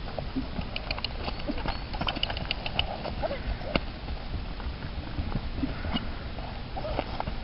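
Saddled horse cantering on a lunge line over grass: irregular soft hoofbeats with scattered sharp clicks.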